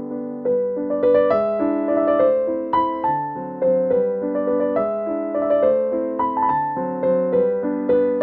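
Background piano music: a gentle melody of struck notes, each fading after it is played, at an even pace.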